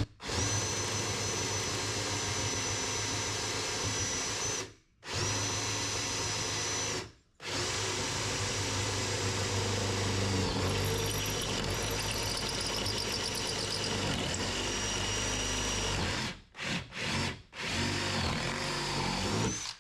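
Power drill boring a hole through the door armor and the bottom of a Jeep Cherokee XJ door. The drill runs steadily with a high whine, stops briefly twice, changes tone about halfway through, then gives a few short bursts near the end.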